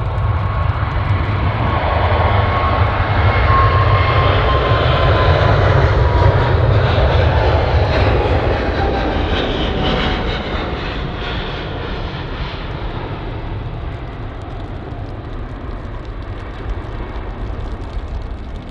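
Boeing 777F freighter's twin GE90 turbofans at takeoff power: a heavy rumble with a high whine that slides slowly down in pitch as the jet passes. It swells to its loudest about six seconds in, then fades as the aircraft climbs away.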